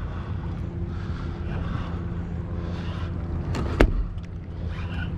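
Boat engine idling with a steady low hum, and a single sharp knock a little before the end.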